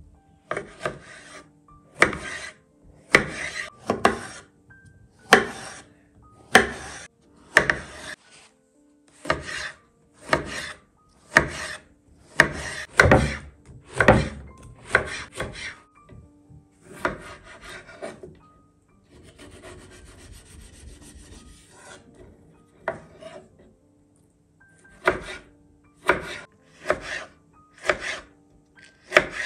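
Chef's knife slicing through eggplant on a wooden cutting board, each cut ending in a knock against the board, about one stroke a second. A short stretch of faint steady hiss replaces the cuts about two-thirds through, then the knife goes on, slicing a tomato near the end.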